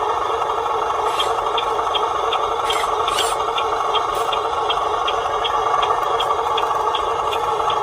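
A radio-controlled vehicle's small electric motor and gearbox running steadily, with a light tick repeating nearly three times a second.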